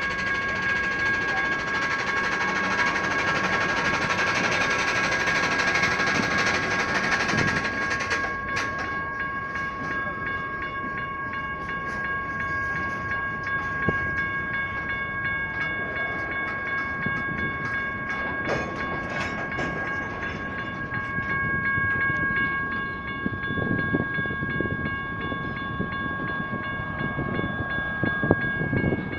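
Freight cars rolling through a grade crossing with a steady rumble and occasional clanks, while the crossing signals' General Signals Type 1 electronic bells ring on as a steady multi-tone ring.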